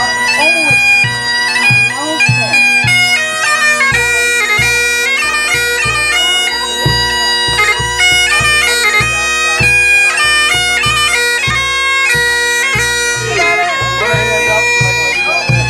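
Highland bagpipes playing a tune over their steady drones, with a bass drum struck in time under it.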